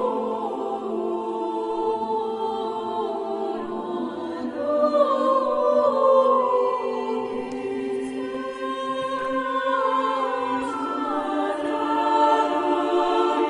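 Chamber choir singing unaccompanied Renaissance polyphony in a church, several voice parts holding long notes and moving slowly against one another.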